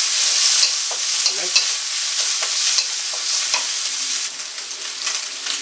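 Chicken strips sizzling as they fry in hot sesame oil, with a steady crackling hiss. A utensil clicks and scrapes against the pan several times as the chicken is stirred.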